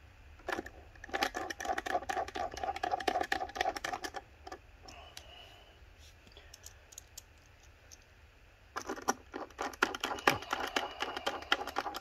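A screwdriver and small screws clicking and scraping against the iMac's metal chassis and logic board as the motherboard screws are refitted. Two spells of quick clicks, with a quieter stretch in the middle.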